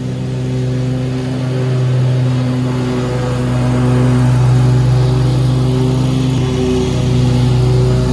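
Scag Tiger Cat II zero-turn mower mowing with its engine running steadily. It grows louder as the mower comes close, loudest about halfway.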